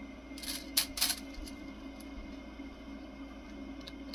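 Two sharp clicks about a second in as a strand of PLA 3D-printer filament is handled, pulled and bent between the fingers, over a faint steady hum.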